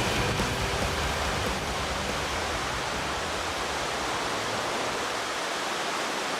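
Steady rush of water from a large waterfall, an even noise with no distinct events.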